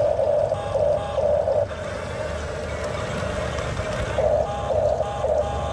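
A motor whine that comes and goes in swells, with a low rumble underneath, typical of radio-controlled model trucks and machines working.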